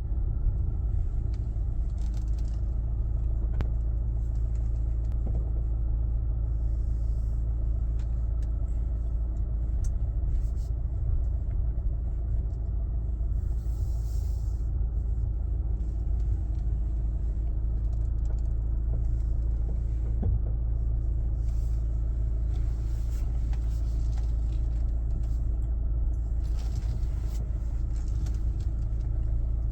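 Hyundai Grand Santa Fe rolling and stopping: a steady low rumble of engine and road, with a few faint sharp knocks, one about four seconds in and another about twenty seconds in. The knock is the one the owner hears from the left front suspension when the car comes to a full stop and its weight shifts back, still there after the ball joints and tie-rod ends were replaced.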